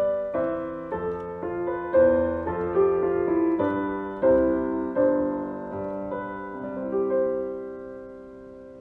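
Piano playing a slow closing passage of chords, each struck note dying away. The last chord is held and fades out near the end.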